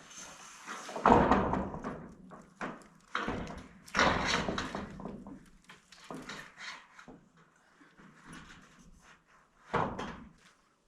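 A series of thumps and knocks from roofing panels being handled and set on the roof framing. The loudest comes about a second in, another about four seconds in, and one more near the end, each with a rumbling after-ring, with lighter clatter in between.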